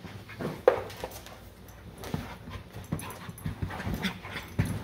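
Labrador retriever and Lucas terrier puppies play-wrestling: panting, small whimpers and scuffling, with a sharp short sound just under a second in.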